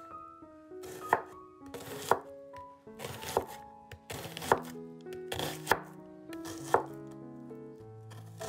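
Santoku knife slicing through a red onion onto a wooden cutting board: six sharp strokes about a second apart, over soft background music.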